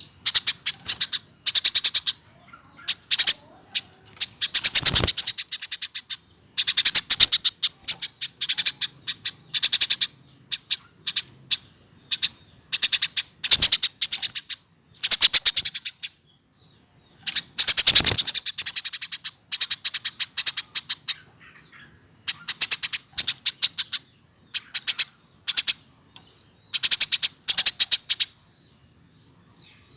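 Hand-reared Eurasian tree sparrow singing its full, chattering song: fast runs of repeated chirps, each a second or three long, broken by short pauses.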